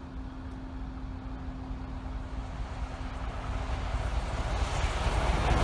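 Approaching train hauled by the LMS Princess Coronation class steam locomotive 46233 Duchess of Sutherland, its rumble growing steadily louder as it nears.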